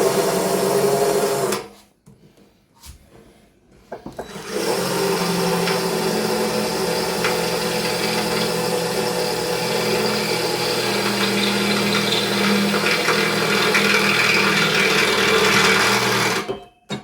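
Electric drill boring a hole through the metal winch bumper: a short run of under two seconds, then after a pause a long steady run of about twelve seconds under hand pressure.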